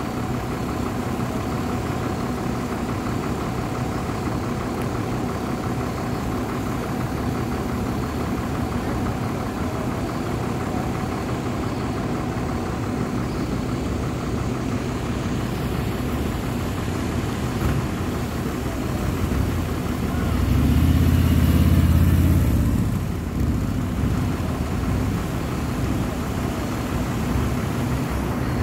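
Motor vehicle engines idling with a steady hum. About two-thirds of the way through, a vehicle passes close by and is loud for about two seconds.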